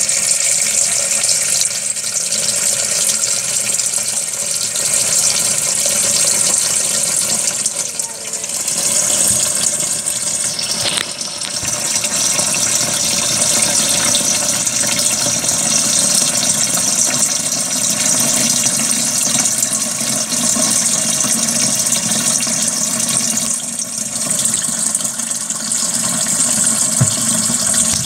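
Steady stream of tap water pouring and splashing into the plastic wash tub of a Zeny portable washing machine as the tub fills for a wash cycle.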